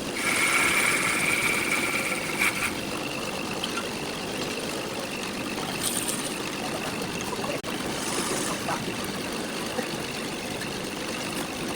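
Wood lathe running steadily, with a turning tool cutting into the spinning wood in spells that bring a brighter, hissing scrape.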